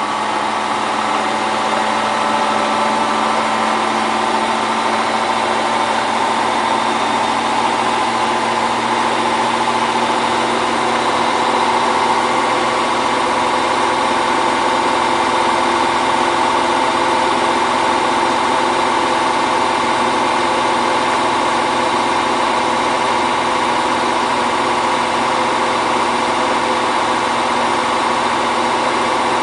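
Hotpoint Ultima WT960 washing machine spinning: a steady motor and drum whine that creeps slightly higher in pitch partway through, then holds.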